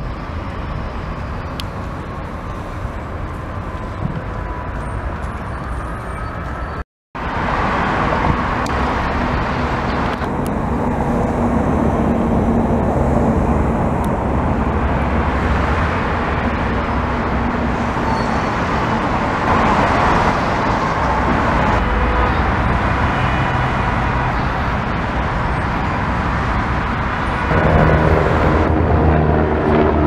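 Steady city road traffic: cars, buses and trucks passing on a busy multi-lane road, broken by a brief gap of silence about seven seconds in. Near the end a helicopter passes overhead, adding a droning engine and rotor hum.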